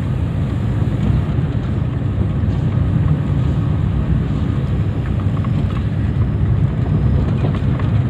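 Steady low rumble of a car's engine and road noise heard from inside the cabin while driving.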